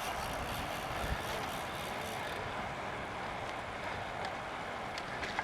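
Road bicycle rolling along pavement: a steady rushing noise of tyres and wind on the microphone, with a few faint clicks.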